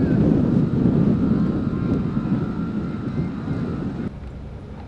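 Loud low rumble of wind buffeting the microphone over ship machinery noise, with a faint steady high whine. The rumble drops off abruptly about four seconds in.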